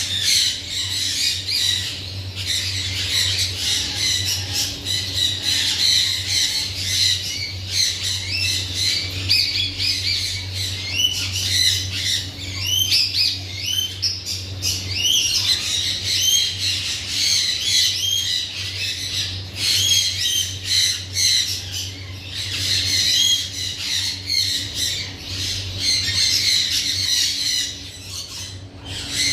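Alexandrine parakeet squawking: a dense run of short, rapid, shrill calls, over a steady low hum.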